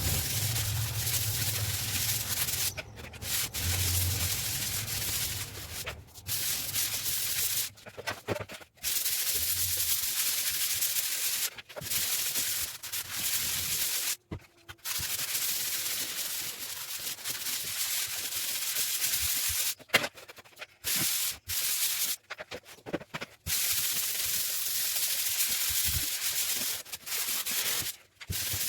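Abrasive rubbing on a surface, as in sanding a wall or ceiling during renovation: a steady, scratchy hiss in long stretches, broken by short pauses several times.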